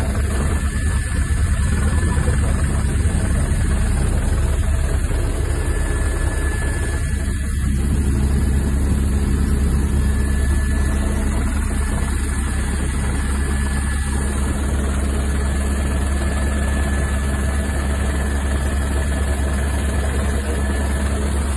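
Helicopter running steadily, heard from inside the cabin: a constant low engine and rotor drone.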